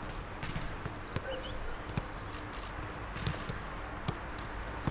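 Footballs being kicked back and forth in a passing drill: sharp, irregular thuds roughly once a second over a steady outdoor background.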